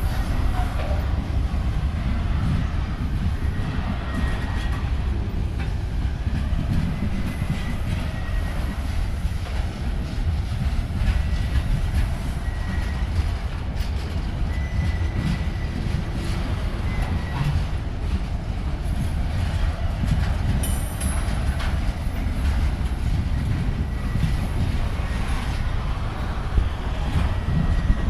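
Train rolling past with a steady heavy rumble and the rattle of wheels over the rails, and short high wheel squeals coming and going.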